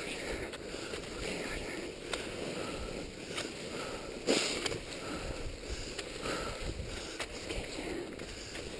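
Skate skis swishing and scraping over a snow trail, with the light clicks of pole plants in a steady stride rhythm; one louder scrape about four seconds in.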